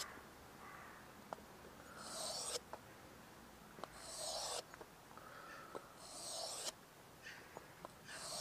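Mora knife blade scraping along a wet 1000-grit waterstone in slow sharpening strokes, about one every two seconds, each a short, faint rasp, with light clicks between strokes.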